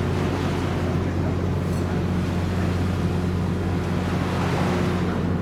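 Steady low drone of a moored cargo ship's diesel machinery running, with an even rushing noise over it.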